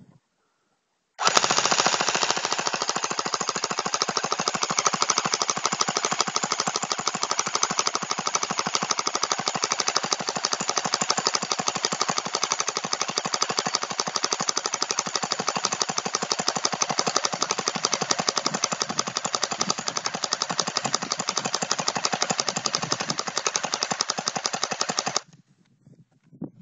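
Upgraded airsoft AK47 electric gun, with a Systema motor and steel gears on an 8.4 V battery, firing a long full-auto burst at about 16–18 shots a second. The burst starts about a second in and cuts off suddenly near the end.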